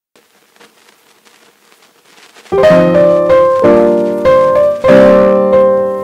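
Background piano music: almost nothing for the first couple of seconds, then loud piano chords come in about two and a half seconds in and keep playing.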